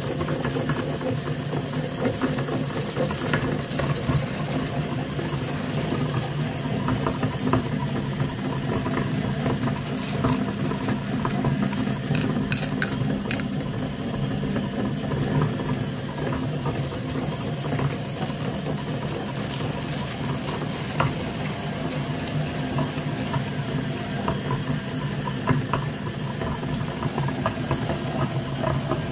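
Electric meat grinder running steadily as it grinds candy-coated chocolates, a constant motor hum with scattered crackles as the candies are crushed.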